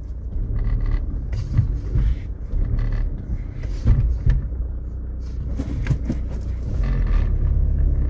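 1999 Audi A3's engine idling, heard inside the cabin, with several irregular sharp knocks. The knocks are the 'krak krak' clicking that the owner gets when pressing the brake pedal, which still comes after new brake pads.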